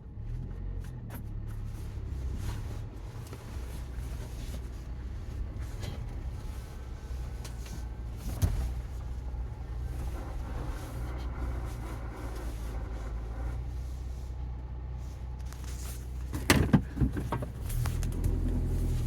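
2021 Ford Bronco's manual transmission making a low grinding noise with the engine idling at a standstill, a noise heard in neutral and low gears that goes away when the clutch pedal is pressed. A knock about eight seconds in and a louder cluster of knocks near the end.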